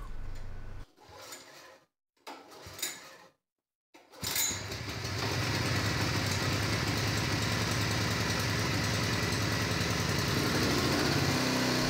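Honda HS35 snowblower's small four-stroke engine starting for the first time after its carburetor was cleaned and reassembled. A few brief sounds with gaps come first, then the engine catches about four seconds in and runs steadily.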